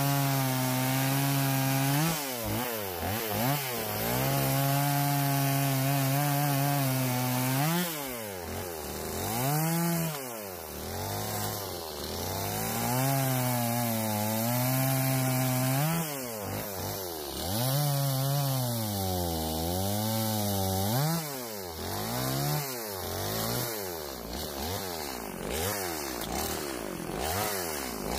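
Two-stroke STIHL MS180 chainsaw, running a replacement aftermarket engine, cutting through a log. It is held at a steady high rev for the first several seconds, then the engine note repeatedly sags and climbs again as the chain bites into the wood and is eased off.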